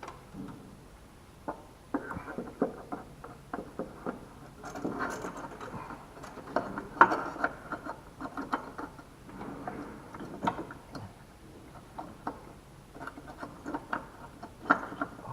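Hands working small metal and plastic parts: fuel-line retaining clips being fitted to a new fuel filter, giving irregular clicks, scrapes and rattles, with clusters of sharper clicks about 5 and 7 seconds in.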